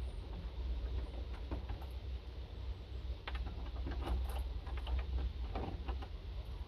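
A bunch of keys jangling and clicking in a door lock as the door is being unlocked: scattered short metallic clicks over a steady low rumble.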